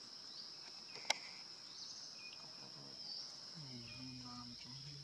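Steady high-pitched insect drone, a single sharp click about a second in, and a low, pitched, voice-like drone starting near the end.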